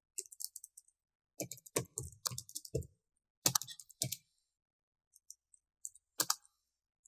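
Computer keyboard typing: quick runs of keystrokes with pauses between, the last few keys near the end.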